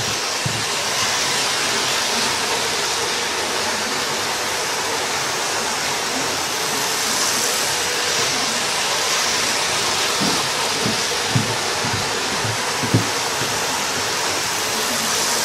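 Model trains running round a layout: a steady whirring hiss of motors and wheels on the track, with a few light knocks about ten to thirteen seconds in.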